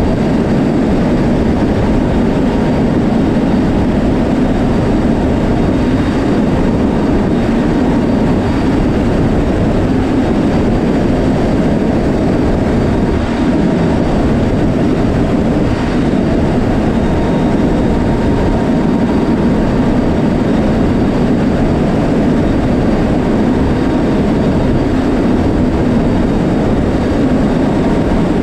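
Steady, loud rush of slipstream and engine noise aboard a C-130J Super Hercules flying with its rear ramp open. Its four turboprops run evenly under the wind, with a faint steady whine above.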